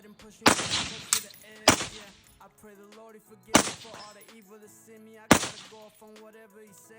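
5.56 rifle fired through a subcompact flow-through suppressor: four loud suppressed shots at uneven intervals over about five seconds, each with a short decaying tail, plus a smaller, sharper crack just after the first shot.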